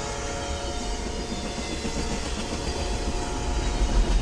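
Double-stack container freight train rolling through a grade crossing: a steady low rumble of wheels and cars on the rails that grows louder near the end. A held tone sits over it and fades out about halfway.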